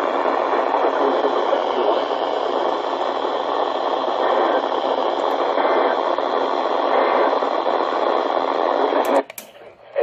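Static hissing from an American Red Cross weather radio's speaker. It cuts off with a click about nine seconds in.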